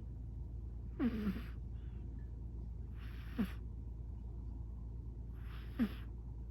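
British Shorthair cat snoring in its sleep: three breaths, about two to two and a half seconds apart, each a short hissy breath ending in a falling snore tone, over a steady low hum.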